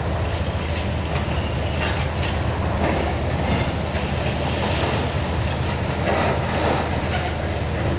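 Diesel engines of high-reach demolition excavators running steadily as they tear into a concrete building, with a rough rumble of breaking concrete and a few clatters of falling debris.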